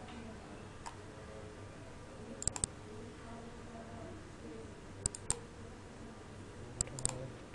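Computer mouse clicks, sharp and in quick groups of two or three, about every two seconds over a faint steady hum.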